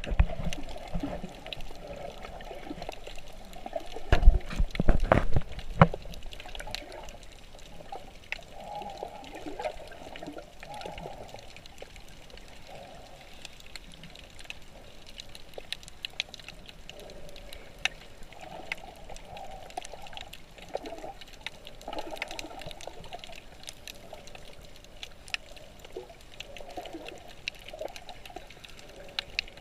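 Muffled water sound recorded underwater: gurgling and bubbling in uneven patches, with a cluster of heavy thumps about four to six seconds in.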